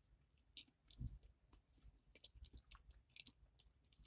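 Faint mouth clicks and soft wet smacks of a man chewing a bite of sandwich with his mouth closed, with one dull low thump about a second in.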